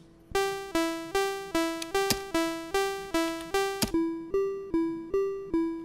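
Commodore 64 SID chip playing a looping two-note pattern, alternating G and E, about two and a half notes a second, each note struck and quickly fading like a piano. The notes start with a bright, buzzy sawtooth wave and switch to a softer, hollower triangle wave about four seconds in.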